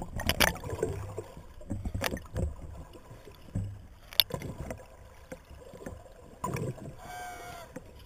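Underwater sound picked up through a camera's housing: a low water rumble with scattered sharp knocks and clicks, and a brief muffled pitched tone about seven seconds in.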